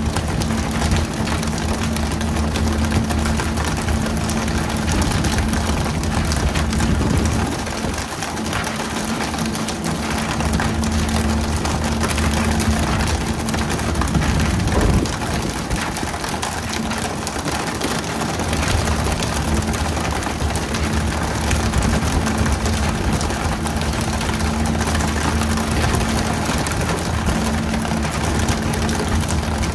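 Fishing boat's engine running steadily with a low hum, over a steady hiss like water spray. The engine hum drops briefly twice, about 8 and 16 seconds in.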